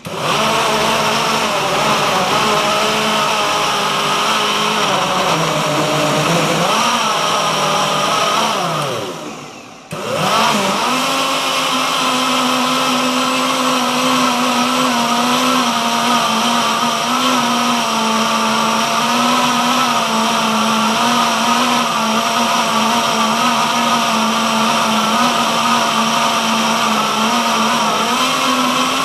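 Power Mill power blender's motor blending large chunks of raw pumpkin into a thick purée. It starts up at once and runs with a wavering pitch as the speed is adjusted, then falls in pitch and cuts out about ten seconds in. It starts again straight away and runs steadily.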